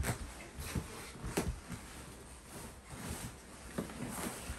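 Scattered knocks, bumps and rustles of a person moving about a small wooden room and handling bags, with a sharp knock right at the start.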